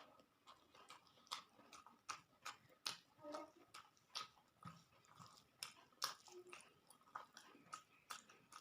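A person chewing food close to the microphone: soft, irregular mouth clicks and smacks, about two or three a second.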